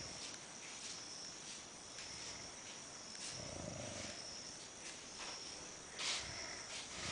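Someone snoring slowly: one long, deep snore a little past three seconds in and another beginning at the very end, over a steady high chirring of crickets.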